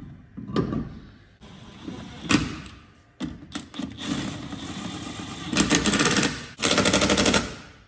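Pneumatic impact wrench hammering in bursts, the two longest back to back near the end, after irregular knocks and clatter of tools.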